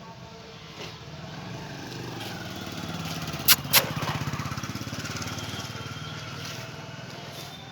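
A small engine running past, getting louder to a peak about four seconds in and then fading. Two sharp clicks come in quick succession about three and a half seconds in.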